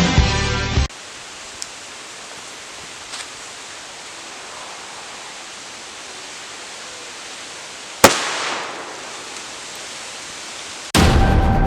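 A homemade egg airsoft grenade goes off once with a single sharp bang about eight seconds in, followed by a short echoing tail over steady outdoor hiss. Background music plays briefly at the start and comes back near the end.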